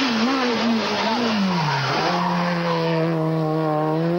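Rally car engine approaching at speed, with tyre noise. The engine note wavers and falls as the car slows for the bend, holds steady, then begins to rise near the end as it accelerates out of the corner.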